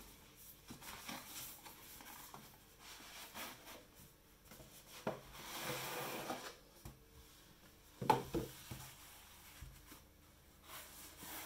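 Cardboard packaging of an Osmo Mobile 2 stabiliser being handled: the black carry case slides out of its cardboard sleeve with a long rubbing scrape, and a sharp knock about eight seconds in as it is set down on the wooden table, with light rustles and taps around them.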